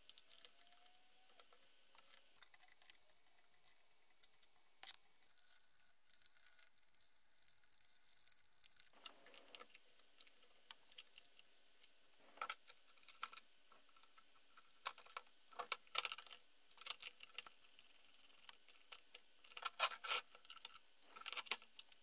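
Near silence with faint, scattered clicks and light knocks from chainsaw parts being handled during reassembly, coming more often in the second half.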